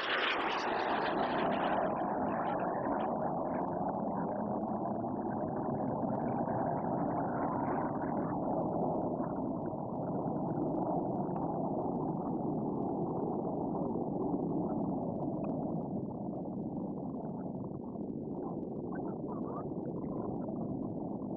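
Red Arrows' BAE Hawk T1 jets passing low over the sea: a jet roar peaking at the very start, then a steady rumble of jet engines that slowly fades.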